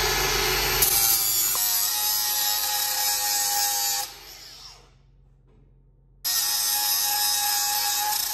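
Small handheld angle grinder cutting into a steel exhaust J-pipe, running with a steady high whine and grinding. It stops about four seconds in and spins down. Then it cuts into the pipe again about two seconds later.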